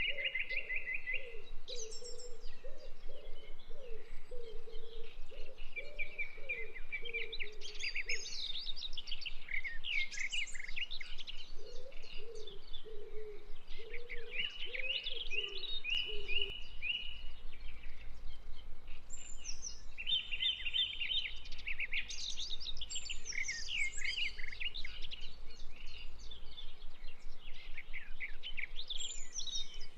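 Birdsong: many quick chirps and rapid trills, some falling, some held on one note for a second or two.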